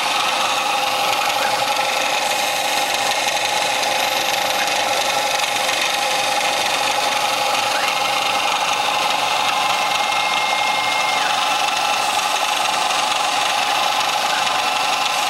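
CNC mill spindle running steadily while a half-inch Cratex rubber-bonded abrasive stick engine-turns swirl patterns into stainless steel sheet. There is an even mechanical hum and rubbing noise with a steady mid-pitched tone, and a higher tone joins it for a few seconds from about eight seconds in.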